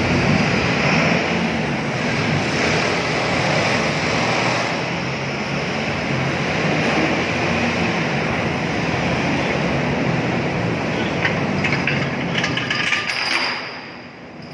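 Terminal tractor running as it hauls a container trailer along the ship's deck, over a loud, steady rush of noise. A few light rattles come near the end, and then the noise drops away sharply.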